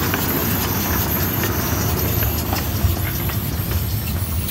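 Ridable miniature-railway locomotive rolling slowly past on its track: a steady low rumble with light clicking that repeats about three times a second.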